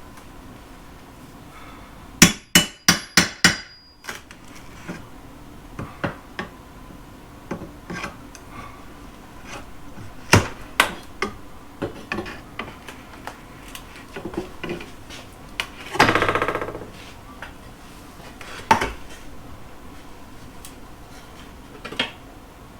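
Hammer blows and knocks while old wooden trim and paneling are pried off a wall: a quick run of about six sharp strikes near the start, scattered knocks, and a creak of about a second as a piece is pried loose.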